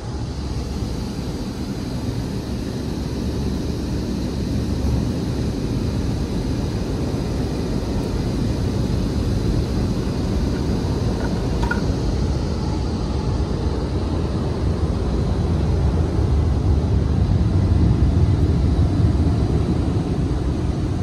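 Steady low rumble of a car driving off, heard from inside the cabin, slowly growing louder.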